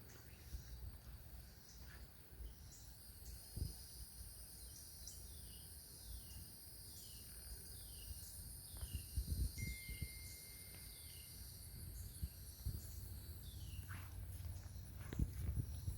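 Insects droning steadily at a high pitch, with a bird calling a series of short, evenly spaced falling notes through the middle. Low thumps from footsteps or handling come and go.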